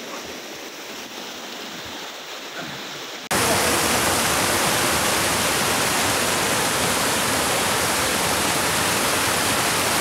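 Waterfall's falling water rushing steadily, fainter at first; about three seconds in it jumps abruptly to a much louder, close rush of water that stays steady.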